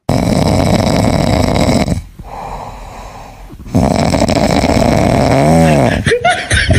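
A sleeping golden retriever puppy snoring: two long, loud raspy snores with a quieter breath between them. The second snore ends in a short whistle that rises and falls.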